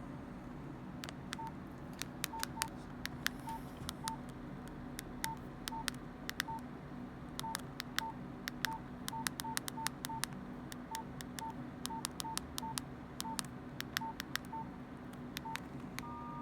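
Nokia 105 keypad being pressed key after key, each plastic key click sounding a short, same-pitched keypad beep, about twenty in all at an uneven pace as a number is dialled. Near the end a brief steady two-note tone sounds as the call goes through.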